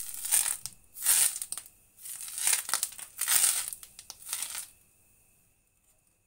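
A wad of cloth rubbed around an oiled frying pan to grease it, making about five hissy scrubbing strokes that stop about three-quarters of the way through.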